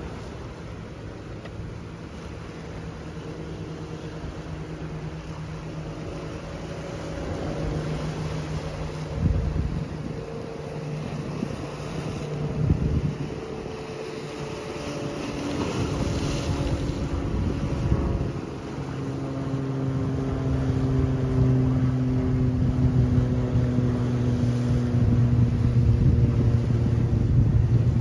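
A motor engine drones steadily, its pitch drifting slowly, growing louder toward the end. Underneath, waves wash against shoreline boulders, with a few brief louder surges.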